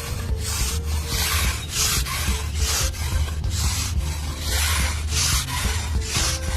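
Repeated hand scraping or sanding strokes on a small hard piece, about one to two rasping strokes a second, over a steady low hum.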